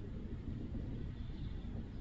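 Low, steady rumbling outdoor background noise with no distinct event.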